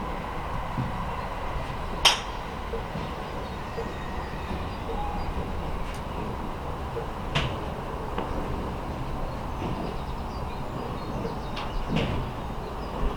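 Sharp crack of a golf iron striking a ball off a range mat about two seconds in, followed by a few fainter strikes later, over a steady low background rumble.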